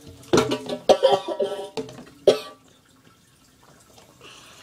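A boy coughing and gagging in three loud bursts within the first two and a half seconds, with strained, pitched vocal noises mixed in.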